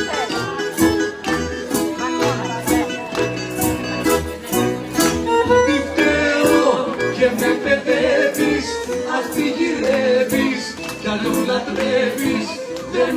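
Live rebetiko band playing: bouzouki, acoustic guitars and accordion in a steady strummed rhythm, with singing joining in about halfway through.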